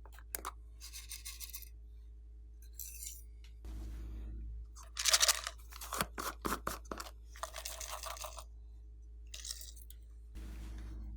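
Slime being squeezed and worked by hand, crackling and popping in short bursts with separate clicks. The loudest burst comes about five seconds in.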